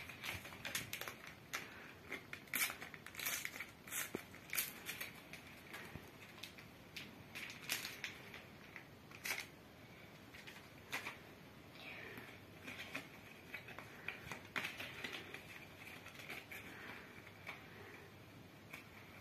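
Panini trading-card packet torn open and the cards inside handled and flicked through: faint, irregular crinkling of the wrapper and many sharp clicks as the cards are sorted.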